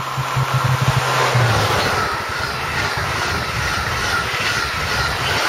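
TGV Duplex high-speed train passing at speed. A low hum from the leading power car cuts off about a second and a half in, then the double-deck coaches rush past with a rhythmic beat of wheels going by.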